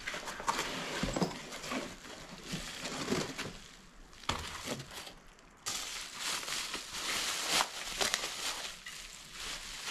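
Clear plastic bag crinkling and rustling as a part is pulled out of it, with a cardboard box being handled; a brief lull about halfway through before the rustling starts again.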